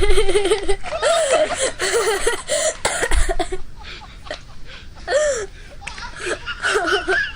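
A person laughing hard in repeated bouts, mixed with some speech, loudest in the first three seconds.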